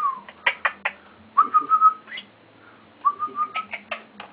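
Pet parrot whistling: a short falling note, then two held whistles of about half a second each, the first sliding up at its end, with sharp clicks in between.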